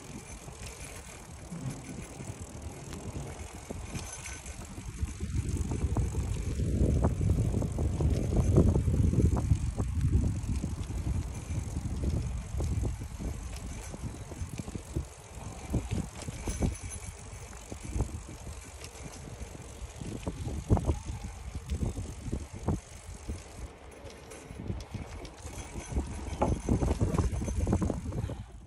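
Riding noise from a moving bicycle: a low rush of wind over the microphone that swells about five seconds in and again near the end, with scattered sharp knocks and rattles as the bike goes over bumps.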